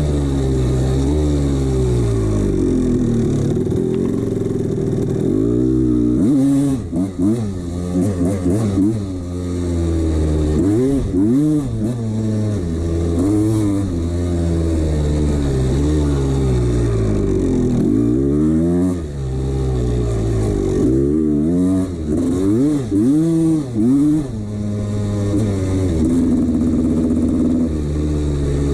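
1989 Honda CR250's single-cylinder two-stroke engine running, then revved in many quick throttle blips, the pitch swooping up and down with each, before it settles again near the end. The owner says this engine has piston slap.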